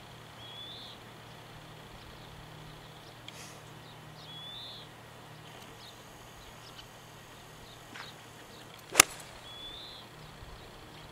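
Golf iron striking a ball off the turf on a full swing: one sharp crack about nine seconds in. A bird calls three times, each a short chirp that rises and then falls.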